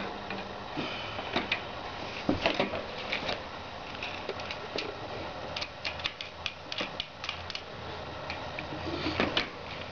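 Light clicks and knocks of bicycle parts and hardware being handled while a front wheel is fitted to a bicycle fork, with a run of quick light taps in the middle.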